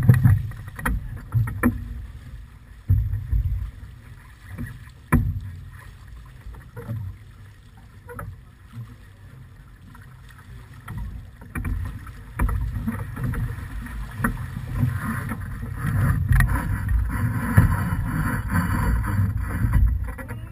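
Wind buffeting the microphone in gusts over water rushing along the hull of a small keelboat under sail, with scattered sharp knocks. The rush of water grows louder over the last few seconds.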